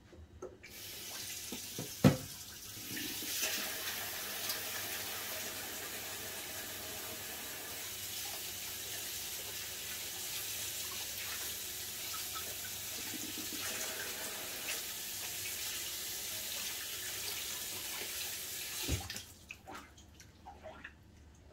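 Water tap running steadily into a sink, with a sharp knock about two seconds in. The water stops near the end, followed by a few small clicks.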